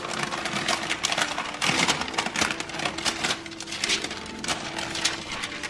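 Parchment paper crinkling and rustling as hands fold and roll it over a peanut butter candy roll: a quick, irregular run of small crackles.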